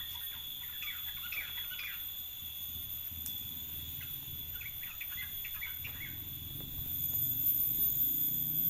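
Small birds twittering: two runs of quick high chirps, one starting just after the beginning and another from about four to six seconds in, over a faint steady hum.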